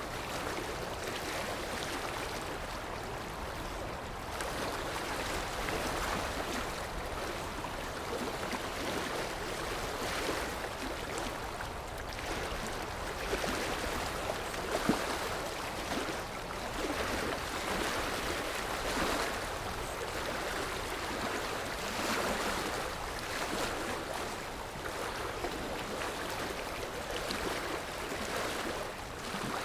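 Sea waves breaking on the shore: a steady wash of surf that swells and eases every few seconds.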